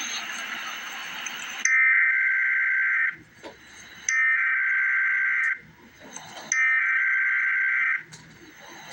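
Emergency Alert System SAME header: three harsh digital data bursts, each about a second and a half long with about a second of hiss between them, coding the alert before the attention tone and the spoken message.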